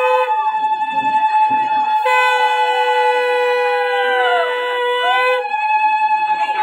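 Two conch shells blown at once in long, steady blasts, one lower in pitch than the other and overlapping; the lower one breaks off twice and starts again.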